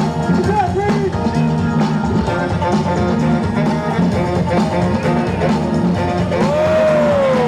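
Loud rock-style music with drums and guitar.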